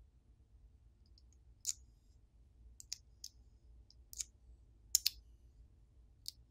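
Small sharp clicks, about nine scattered through, the loudest a close pair about five seconds in: the magnetic lens cover of an Infiray P2 Pro thermal camera being taken off and handled against the camera body.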